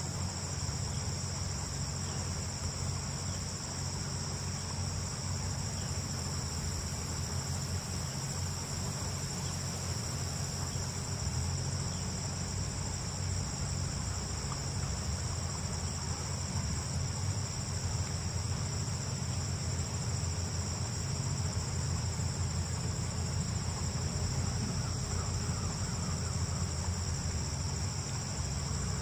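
Steady chorus of crickets trilling continuously at two high pitches, over a low, even rumble.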